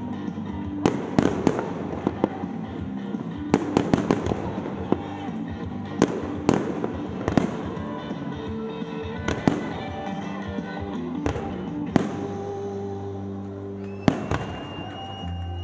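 Aerial fireworks bursting in an irregular string of sharp bangs, in quick clusters early on and more spaced out in the second half, with music playing underneath.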